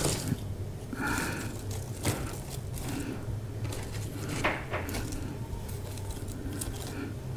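Light taps and scrapes of white asparagus spears being laid in a row on an air fryer tray, a few separate clicks over a steady low hum.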